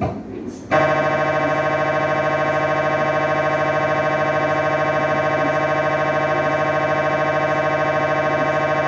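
MRI scanner's gradient coils buzzing during a scan sequence: a loud, steady, pitched electronic buzz with a fast even pulse that starts abruptly under a second in.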